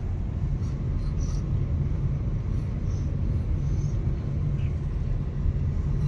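Steady low rumble of a car driving along a paved road, heard from inside the cabin.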